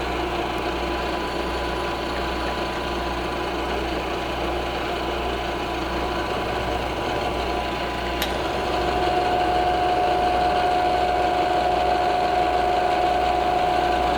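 Milling machine running and taking a cut across an aluminium part, a steady machine whine with a held hum. A sharp click comes about eight seconds in, after which the sound gets louder with a stronger steady whine as the cut goes on.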